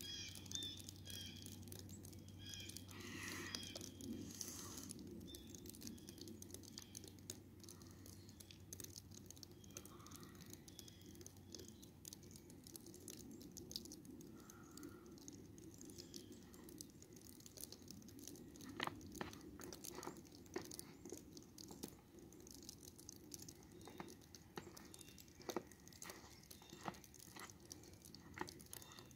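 Faint, scattered soft crunches and clicks of footsteps on snow, coming more often in the second half, with a few faint high chirps in the first few seconds.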